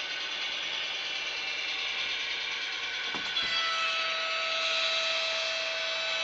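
Model railway train running across a metal truss bridge: a steady hissing rush of wheels and motor with faint clicks on the track, and a steady tone that comes in about halfway through and holds.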